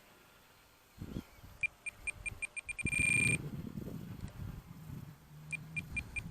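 A high electronic beeper sounds a run of short beeps that come faster and faster, then merges into a held tone; the pattern comes twice. A low, uneven rumble sits underneath.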